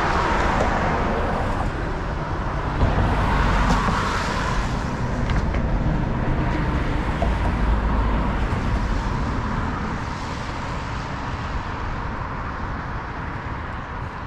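Road traffic on a bridge: cars passing, with tyre noise and engine rumble, louder in the first half and fading toward the end.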